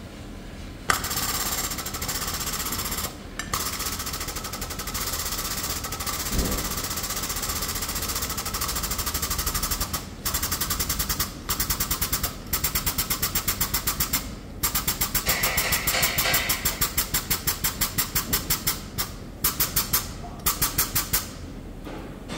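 Air-over-hydraulic pump of a collision-repair frame-straightening bench running with a rapid pulsing hiss as it tensions the pulling chains. It starts about a second in, runs steadily, then works in short stop-start spurts over its last ten seconds.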